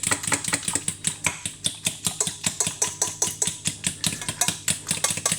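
Banana mash being stirred into hot water in a small saucepan: a utensil clinking against the pot in a quick, steady rhythm of about four or five strikes a second.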